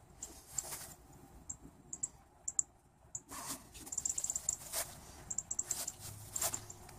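Light clicks and rustles of gloved hands handling a pair of pliers and a battery cable end, with a quick run of small ticks about four seconds in.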